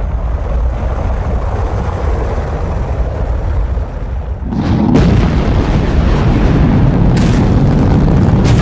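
Recorded Saturn V rocket launch: the first-stage engines' deep, steady rumble, which swells louder about five seconds in, with a few brief crackles near the end.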